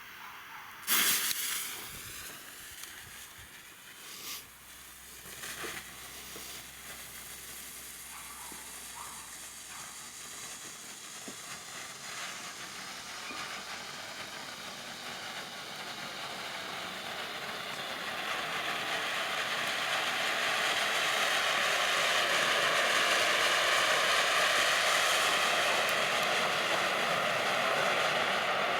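Megabanger St. Helena Volcano firework fountain spraying sparks with a steady rushing hiss that builds louder over the second half and then holds. A sharp pop about a second in and a couple of smaller pops a few seconds later.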